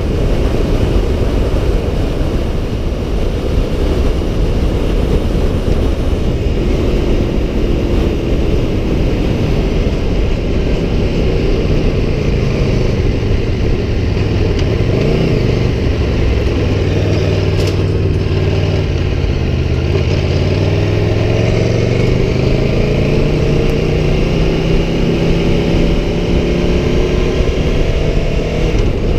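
Aprilia Tuono V4 1100 Factory's V4 engine running on the move under heavy wind rush. Its pitch drops around the middle, then rises steadily through the last several seconds as the bike accelerates.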